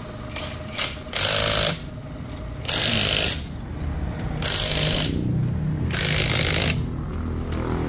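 Impact wrench fired in four short bursts, each under a second, running lug nuts onto a wheel, with an engine idling underneath.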